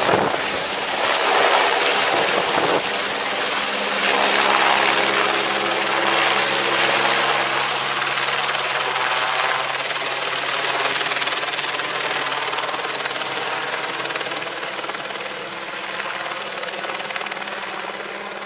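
Eurocopter AS350 B3 Écureuil helicopter flying with a caravan slung from its cargo hook: steady rotor and turbine noise that slowly fades as it moves away.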